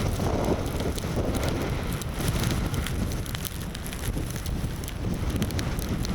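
Gusting storm wind buffeting the camera microphone: a steady low rumble and rush, with scattered faint ticks.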